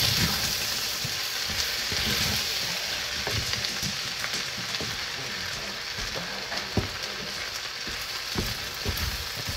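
Sautéed rice with mixed vegetables and scrambled egg sizzling steadily in a frying pan, its burner just switched off, with a few light clicks.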